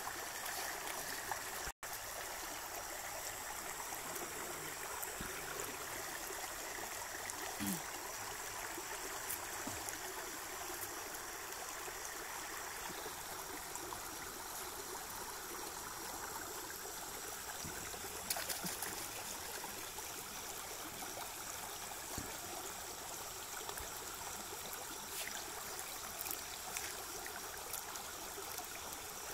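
Steady rush of flowing water around a fishing net set in the water, with a few brief sharp sounds over it.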